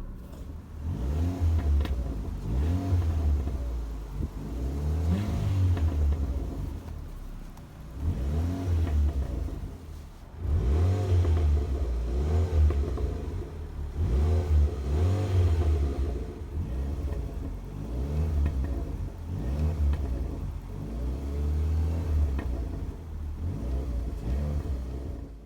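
Ford Fiesta Mk6 engine blipped again and again, its note sweeping up and falling back every couple of seconds, with pops and crackles from the exhaust as the revs drop.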